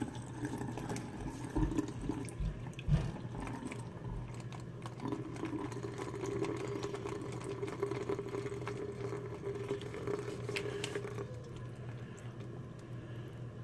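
Brine water trickling out of a plastic bag of shell-on shrimp into a stainless steel sink, over a steady low hum, with a few soft knocks in the first few seconds.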